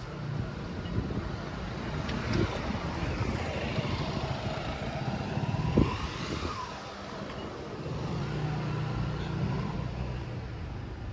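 A motor vehicle passing by, its engine and tyre noise swelling to a peak about six seconds in and then fading, over a low engine rumble. A couple of brief knocks sound along the way.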